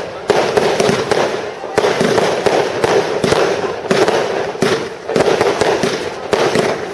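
Fireworks display going off: a dense, rapid string of loud bangs and crackling reports, several a second, with no pause.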